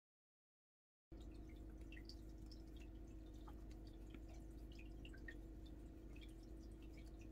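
About a second of total silence, then a faint steady hum with scattered tiny ticks from a crochet hook working cotton yarn.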